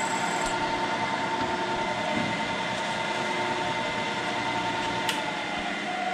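Vertical milling machine's spindle motor running with the end mill lifted out of the keyway cut in the steel shaft, a steady whine with a higher whine that stops about half a second in. A click about five seconds in, after which the main whine begins to drop in pitch as the spindle winds down.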